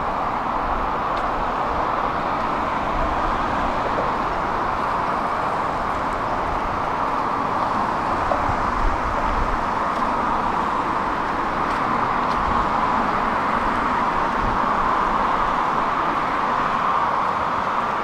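Steady road traffic noise, mostly tyre hiss from passing cars, with no single vehicle standing out; it swells a little after the middle.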